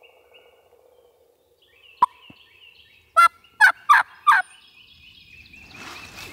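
A wild turkey tom calling at close range: a sharp note about two seconds in, then four loud, short notes in quick succession. Songbirds trill faintly behind, and rustling builds near the end.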